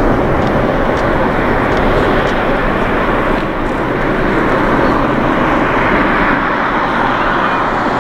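Japan Airlines Boeing 777-300ER's GE90-115B jet engines running as it taxis, a steady jet noise.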